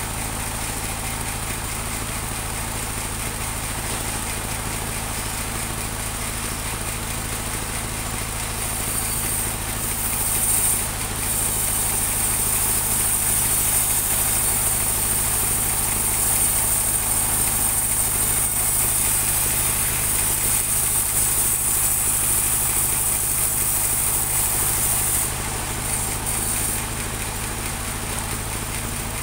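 Engine of a portable band sawmill running steadily. From about nine to twenty-five seconds in, a louder high-pitched whine rides over the engine as the band blade cuts through a teak plank.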